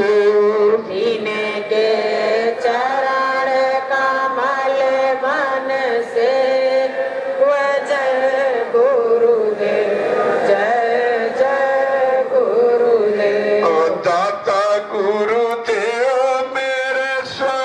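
Devotional chanting sung to a melody, with long held notes that bend up and down in pitch and run on with hardly a break.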